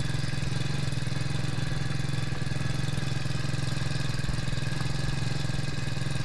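Small 4 hp four-stroke outboard motor idling steadily.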